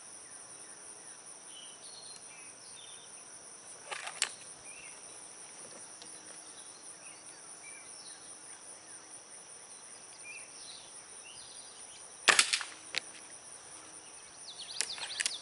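Air rifle firing a pellet: one sharp crack about twelve seconds in, the loudest sound, with a smaller knock just after it. A quieter double click comes about four seconds in and a clatter of knocks near the end, over a steady high insect chirring.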